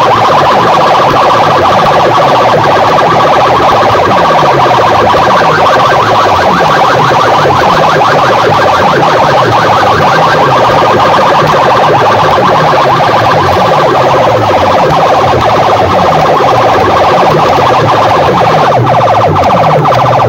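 Competition DJ sound-box speaker stacks blasting a siren-like effect at full volume, heavily distorted. A fast-pulsing wail sits over bass sweeps that fall again and again, about twice a second.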